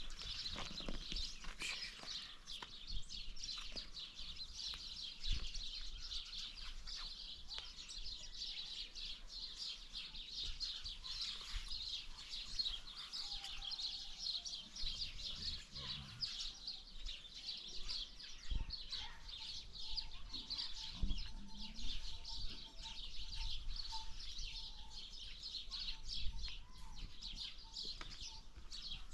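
Many small birds chirping and twittering continuously, a dense chorus of short high calls.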